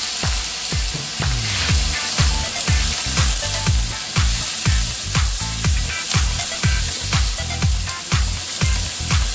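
Potato, carrot and onion chunks sizzling in hot oil in a wok as they are stirred with a wooden spatula. Background dance music with a steady kick-drum beat about twice a second runs underneath.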